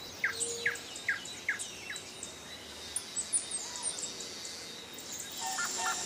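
Wild birds singing in woodland: a run of quick, falling notes about two a second, then scattered higher chirps.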